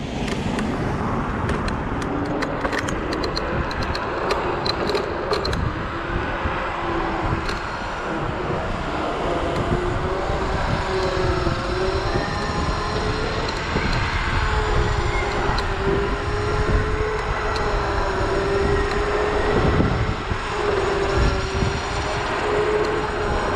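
Zero 10x electric scooter's hub motor whining as it accelerates, its pitch climbing over the first dozen seconds and then holding steady at cruising speed. Under it are wind rushing over the body-worn camera microphone and tyre rumble on the road, with a few sharp clicks in the first few seconds.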